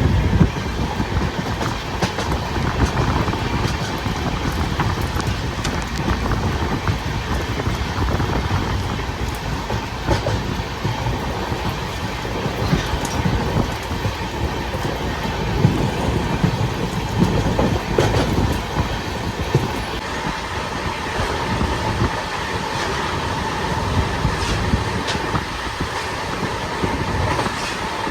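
Moving train running: a steady rumble of wheels on the track with scattered faint clicks.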